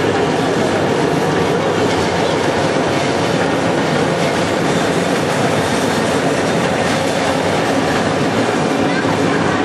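XGJ550 wood sawdust pellet mill running: a loud, steady mechanical noise that holds even throughout.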